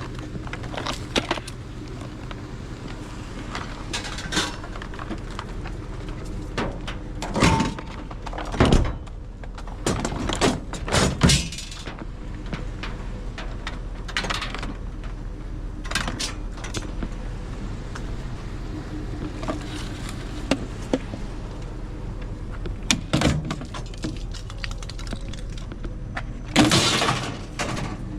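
Scrap metal being handled and loaded: repeated clanks, knocks and rattles of metal pieces striking each other and the load, irregularly spaced, the loudest about two-thirds of the way in and near the end. A vehicle engine idles steadily underneath.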